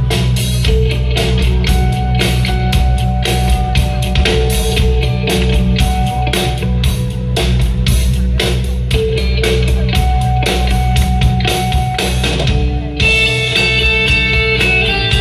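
Live rock band playing loudly, with electric guitars, bass and a drum kit keeping a steady beat. Near the end the drums drop out, leaving ringing guitar chords.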